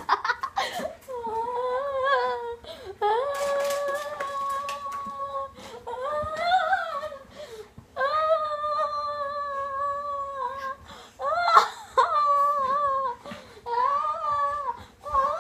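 A child's voice humming long wordless notes, one after another, each held for one to three seconds and wavering a little in pitch, with a short loud outburst about two-thirds of the way in.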